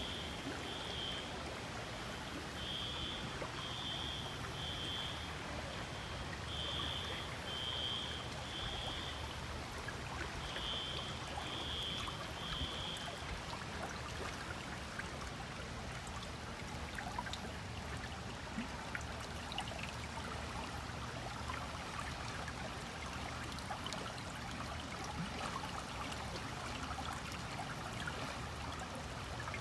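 Stream running with a steady trickle and gurgle. Over the first half, a high-pitched call of three short notes repeats several times, then stops.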